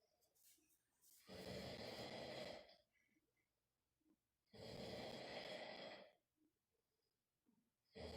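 A man snoring: two long snores of about a second and a half each, roughly three seconds apart, with quiet gaps between and another snore starting near the end.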